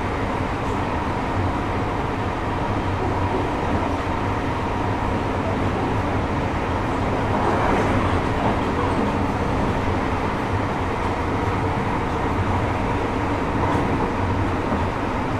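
JR Hokkaido 733 series 3000-subseries electric multiple unit running along the line: a steady rumble of wheels on rail with a faint steady whine, swelling slightly about halfway through.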